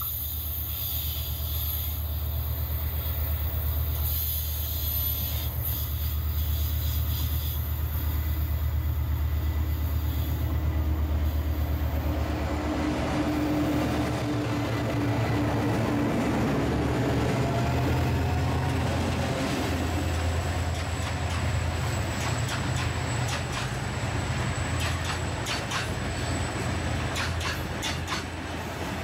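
Diesel freight locomotives running under power with a steady deep engine rumble. From about halfway through, the rolling noise of the train grows, with a rapid series of sharp wheel-on-rail clicks in the last third.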